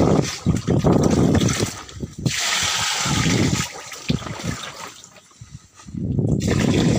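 Water pouring and splashing from the rim of a tipped bag into pond water as whiteleg shrimp fry are released after acclimatization. It comes in uneven surges, nearly dies away about five seconds in, then pours again.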